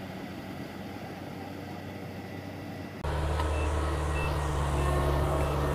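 Kubota DC-70 rice combine harvester's diesel engine running steadily as it harvests, faint at first, then much louder and closer about three seconds in. Two short high beeps sound soon after the jump.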